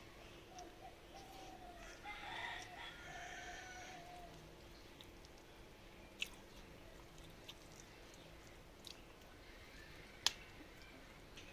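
A rooster crows once, a drawn-out call lasting about three seconds near the start. A few sharp clicks follow later, over a faint steady hum.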